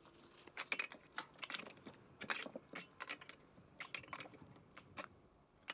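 A run of irregular light clicks and short crunches from hand work on a small piece of sheet metal.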